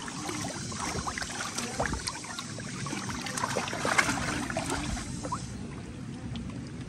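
Water splashing and trickling, with scattered small clicks, a little louder about four seconds in.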